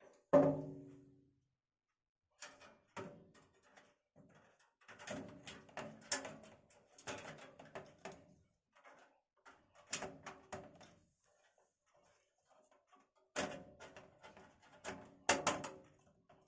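Computer parts being handled and set down in a steel PC case: scattered knocks, clicks and rattles, with a loud ringing metallic thunk about half a second in and a cluster of knocks near the end.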